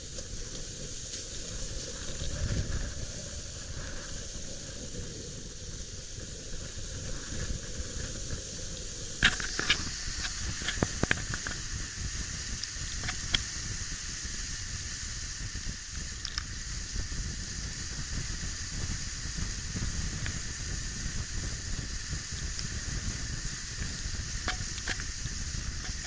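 Water rushing and spraying off a Windrider 17 trimaran's outrigger float under sail, a steady hiss with wind buffeting the microphone. A few sharp knocks stand out about nine to thirteen seconds in.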